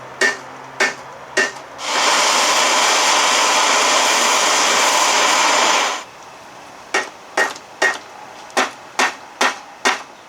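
Hammer striking metal parts of an outboard lower unit, each blow ringing briefly. Three blows, then a steady loud hiss for about four seconds, then a run of about two blows a second.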